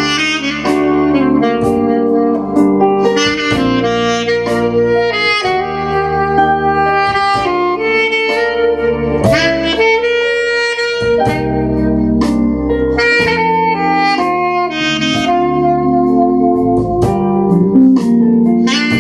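Soprano saxophone playing a ballad melody live, over a band of electric bass, electric guitar, keyboards and drums.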